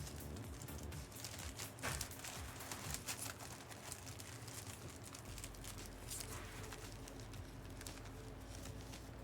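Trading-card pack wrappers crinkling and cards being shuffled and handled, in irregular short rustles and clicks.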